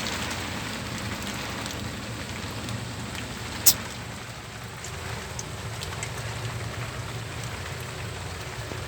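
Strong rain falling and pattering steadily on surfaces, over a steady low hum. There is one sharp click a little under four seconds in.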